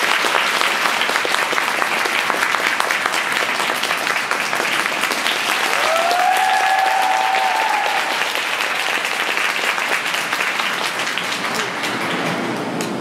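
Audience applauding, with one long cheering call from a spectator about halfway through; the clapping thins out near the end.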